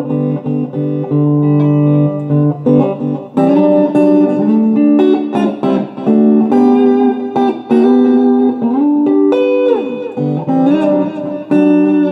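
Electric guitar played through a 1980s Peavey Heritage VTX tube amplifier driving a Peavey Black Widow 1201-8 speaker, on the clean channel. It plays a run of single notes and chords, several bent up in pitch.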